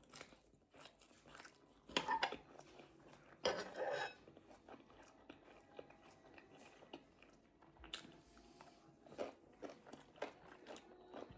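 Close-up eating sounds: food being chewed and crunched, with scattered small clicks and two louder bursts about two and four seconds in.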